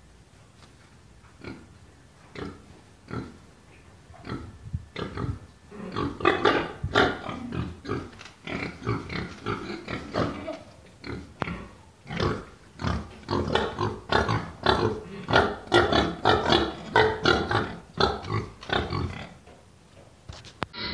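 Several young pigs grunting. At first there are a few short grunts about once a second, then from about six seconds in a dense run of quick grunts from several animals.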